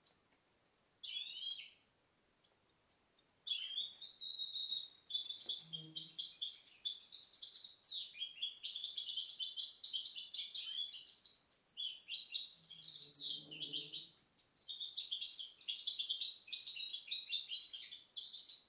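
Goldfinch × canary hybrid (mixto) singing: a short phrase about a second in, then a long, fast twittering song of rapid high notes, broken by a brief pause about three-quarters of the way through.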